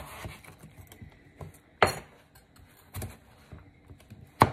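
Chef's knife cutting potatoes into chunks on a wooden cutting board: several sharp knocks of the blade on the board, the loudest about two seconds in and near the end.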